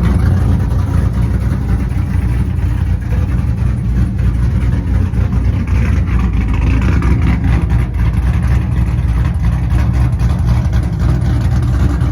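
A car engine running with a steady, loud low rumble that holds without pause.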